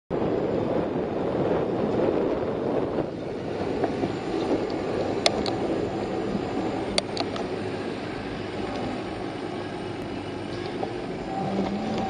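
Wind rushing over the microphone of a camera on a moving bicycle, a steady buffeting noise, with a few sharp clicks about halfway through.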